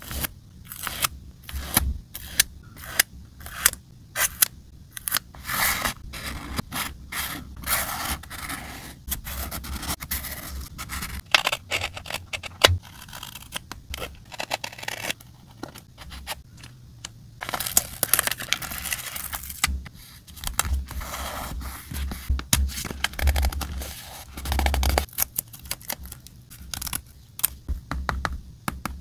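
Scissors snipping through paper and sticker sheets in many short cuts, with paper rustling as the cut pieces are handled. A longer stretch of rustling comes a little past halfway.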